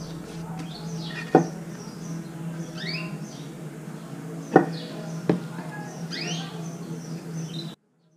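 Three sharp knocks as small wooden pieces and a glue bottle are set on a wooden workbench, one about a second in and two close together past the middle. Birds chirp continually in the background over a steady low hum, and the sound cuts off abruptly near the end.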